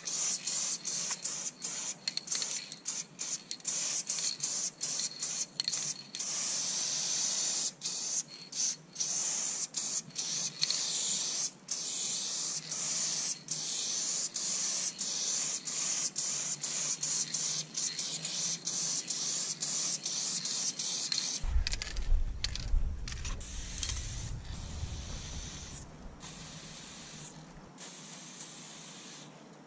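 Aerosol spray-paint can hissing in long bursts, broken by many brief stops as the nozzle is released and pressed again. About two-thirds of the way through, a low rumble comes in underneath for several seconds, and the hiss grows fainter near the end.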